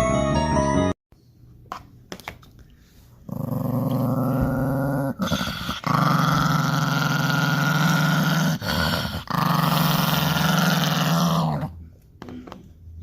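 Dog growling in long, rough, sustained stretches with a few brief breaks, lasting about eight seconds.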